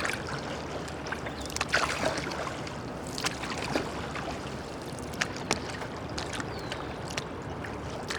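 Small water splashes and drips around a kayak, short sharp ones scattered every second or so, over a steady rush of moving water.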